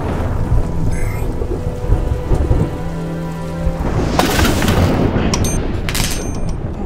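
Thunderstorm sound: thunder rumbling over heavy rain, with two loud sharp cracks about four and six seconds in.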